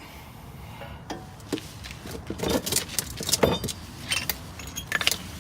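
Metal tools and brake parts being handled: a run of clinks and short rattles, busiest about two to four seconds in, over a steady low hum.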